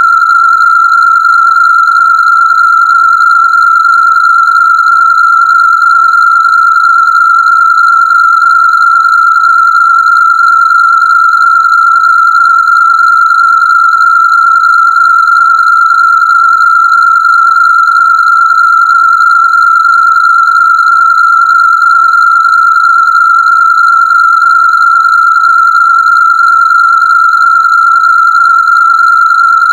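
A single loud, steady electronic test tone, a Rife frequency meant for the endocrine system, held at one high pitch without any change.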